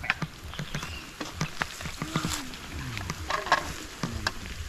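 Tilapia deep-frying in a large amount of hot oil, crackling and popping irregularly. Twice, about halfway through and again near the end, a low wavering sound rises and falls over the crackle.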